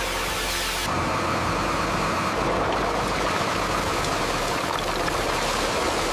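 Steady mechanical running and rattle of a belt conveyor carrying lumps of coal. It follows a short rushing pour of coal tipping from a dump truck; the sound changes abruptly about a second in.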